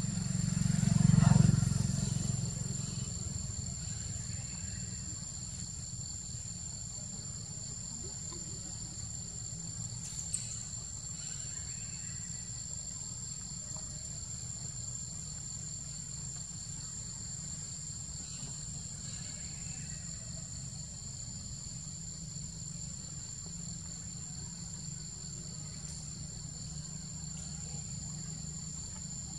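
Insects buzzing steadily in a high two-tone drone over a low rumble. A passing vehicle swells to a peak about a second in, its pitch falling as it goes by, then fades.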